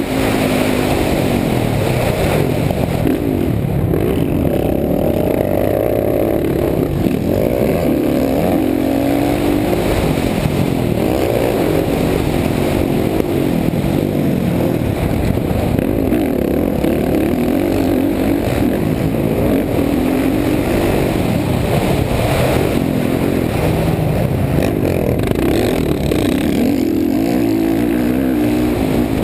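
Motocross dirt bike engine at full race pace, heard close up from the rider's helmet. Its pitch climbs and drops over and over as the throttle opens and closes through jumps and corners, with rushing noise underneath.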